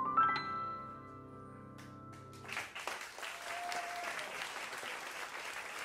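A jazz band's final chord ringing out, with a few high notes struck at its start, fading and stopping about two and a half seconds in. Audience applause then starts and goes on steadily.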